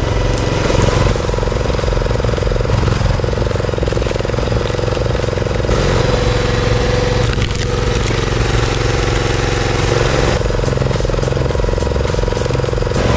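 Excavator engine running steadily under load while the machine works on a tree stump. The sound changes abruptly a few times.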